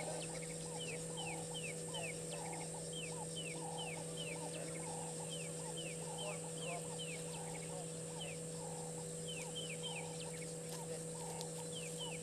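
Wild animal calls in the bush: short falling chirps repeated about two to three times a second, in runs with brief pauses, over a steady high-pitched drone.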